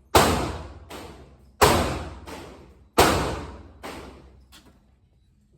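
Three loud gunshots about a second and a half apart, each echoing and fading over about a second, followed by two fainter shots.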